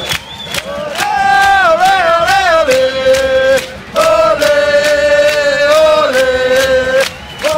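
Football supporters in a stadium stand singing a chant together, a man's voice close to the phone's microphone loudest. It comes as long sung phrases with held notes, over a regular percussive beat, breaking briefly about four seconds in and again near the end.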